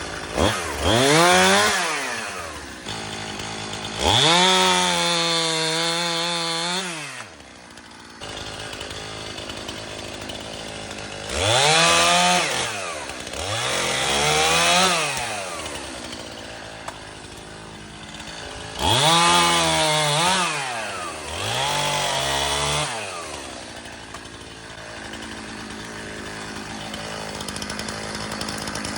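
Stihl MS-291 two-stroke chainsaw revving up to full throttle about six times, each burst dropping back to a steady idle in between.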